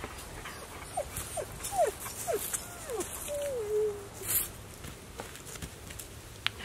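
Dog whining: several short whines, each falling in pitch, then one longer drawn-out whine that falls and levels off, with light rustling and a few clicks.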